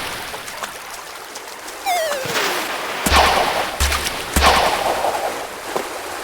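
A falling whistle, then three loud bangs in quick succession, each with a deep thud, like gunshot sound effects.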